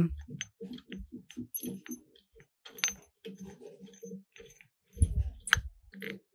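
Washer being fitted onto the shaft of a homemade double bottle polisher: a run of light clinks and clicks, with a heavier knock about five seconds in.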